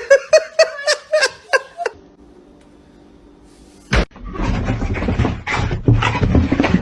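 A person laughing in a quick run of short bursts for nearly two seconds. After a quieter pause comes a sharp knock about four seconds in, followed by a few seconds of loud, rough rustling and clattering noise.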